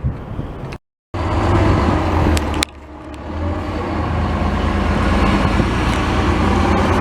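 Steady vehicle engine and road noise, broken by a brief dead gap about a second in. A sharp click comes about a third of the way through; the noise drops there, then builds back up.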